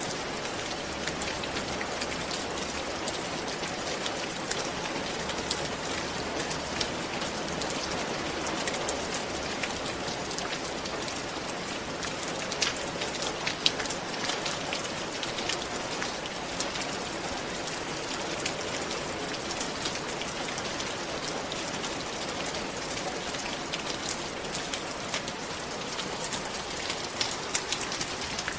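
Steady rain falling on a roof, a continuous hiss with many individual drops ticking sharply.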